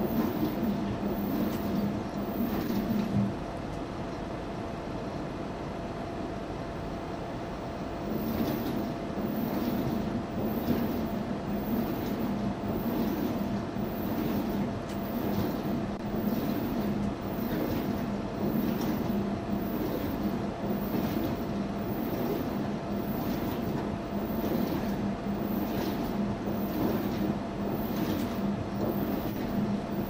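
Front-loading washing machine running a wash cycle: a steady motor hum with laundry tumbling and swishing in the drum, about one swish a second. A few seconds in, the hum drops away for about five seconds, then comes back.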